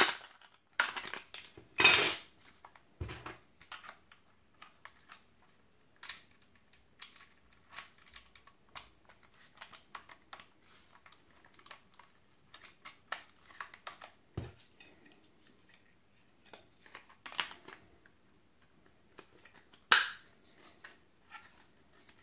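Handling noise from a Parkside PSTK 800 A1 jigsaw: scattered clicks, rattles and clacks of its plastic housing and metal blade-holder parts as it is turned over and its blade holder and base plate are worked by hand. The louder clacks come near the start and near the end, with a dull knock a few seconds in and another about midway.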